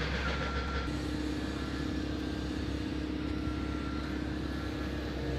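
Steady engine rumble with a low hum, as from a vehicle or machine running, with a couple of faint short beeps.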